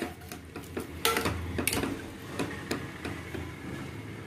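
Steel ladle clinking and scraping against the sides and bottom of an aluminium pressure-cooker pot while chickpea curry is stirred: a run of light metal taps, thickest about a second in, over a faint low hum.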